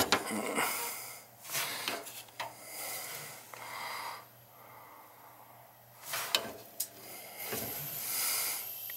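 Air hissing and sputtering out of a hot-water radiator's bleeder valve as it is opened to purge trapped air, with a few sharp clicks of handling; the hiss swells again near the end.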